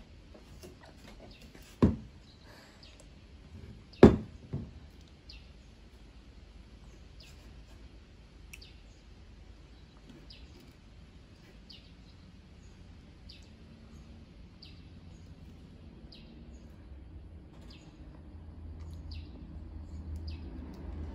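A bird chirping in short calls that repeat about every second and a half. Two sharp knocks, the loudest sounds, come about two and four seconds in, the second followed by a lighter one.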